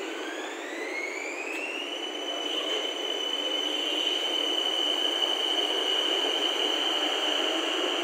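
Bangkok BTS Skytrain electric train pulling through the platform, its traction motors giving a high whine that rises in pitch for about two seconds and then holds steady. Underneath is the rumble of the cars rolling past, which grows louder a couple of seconds in.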